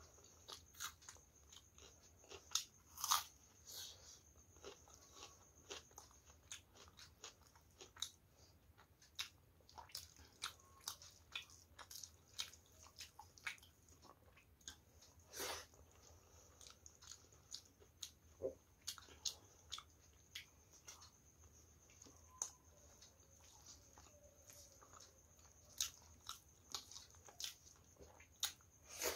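Chewing mouth sounds of a person eating rice and curry with her hand: irregular, short, wet clicks and smacks, one to three a second.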